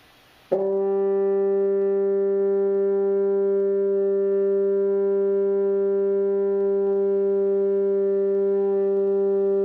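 French horn holding one long, steady note: written D, fingered with the first valve and sounding concert G. The note is started with the tongue, with a clean attack about half a second in.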